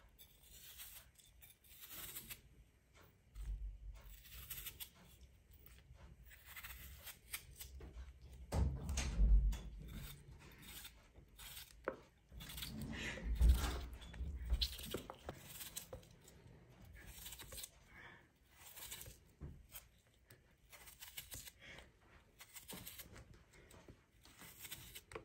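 Kitchen knife slicing a raw potato held in the hand: repeated short, crisp cuts, with the thin slices dropping into a plastic bowl. Louder low thumps come about nine seconds in and again about thirteen seconds in.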